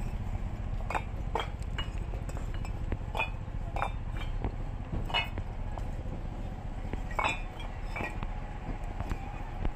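Hard bricks clinking as they knock together while being handled, in sharp irregular strikes about once or twice a second, over a steady low rumble.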